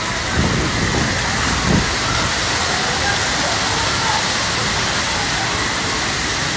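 Steady rush of water from waterfalls pouring off rockwork into a lazy river, with faint voices in the background.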